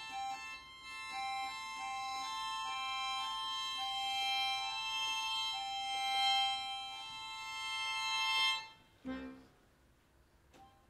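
Accordion playing a high two-note figure, stepping back and forth between two neighbouring pitches in held tones after a quick repeated-note pulse at the start. It cuts off about nine seconds in, with a short low note after it.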